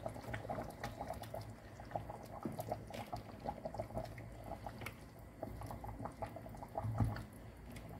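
Meat and vegetable broth simmering in a stainless steel pot, giving an irregular patter of small bubbling pops. Soft splashes and knocks come as chunks of zucchini are lowered into the liquid, the loudest about seven seconds in.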